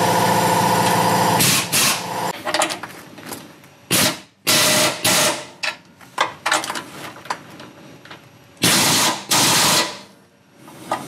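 Pneumatic air tool driving bolts up into the crossmember through a long socket extension. It runs steadily for about a second and a half, then gives several short bursts with loud hissing air, the longest lasting about a second near the end.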